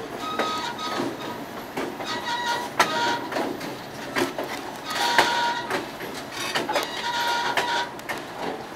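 Excursion train passenger car rattling and clanking as it rolls along the track, with short high-pitched squeals from the wheels now and then.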